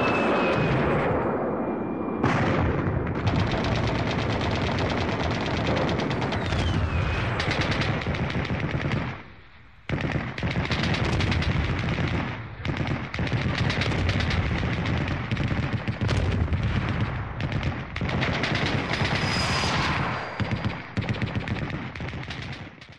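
Battlefield gunfire: dense, rapid machine-gun and rifle fire going almost without pause. It dies down briefly about nine seconds in, then resumes suddenly.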